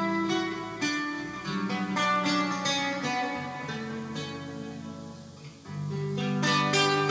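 Acoustic guitar music played back from a Panasonic cassette deck under test. It fades briefly about five seconds in, then picks up again.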